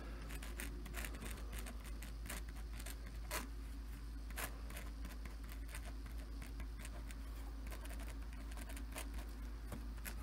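Ballpoint pen writing on paper: a run of short, quiet scratchy strokes over a steady low hum.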